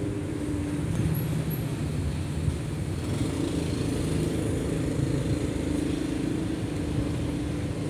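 Steady low hum and rumble of an indoor market hall's background noise, with faint pitched tones coming and going.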